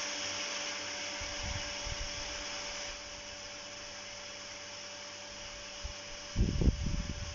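Toom electric garden pump (Hauswasserautomat) running with a steady hum, having switched itself on as the pressure drops. Water hisses from the open hose spray gun, easing about three seconds in, and a few low knocks come near the end.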